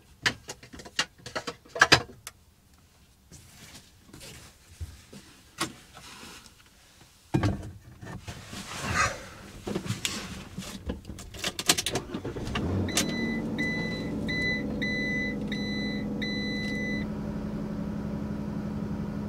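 Clicks and rustling of someone settling into a van's driver seat, then the van's engine starts about two-thirds of the way in and settles into a steady idle. Over the start, a dashboard warning chime beeps about six times.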